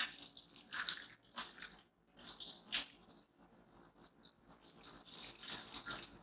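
Water poured from a jug over a switched-on power strip, splashing and trickling in uneven surges.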